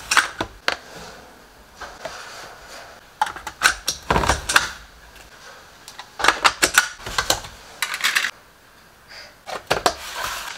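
Plastic kitchen clatter while a shake is put together: airtight storage-container lids clicking open and shut, a powder scoop tapping the blender cup, and tubs set down on the wooden bench. It comes in several short bursts of clicks, with a dull thump about four seconds in.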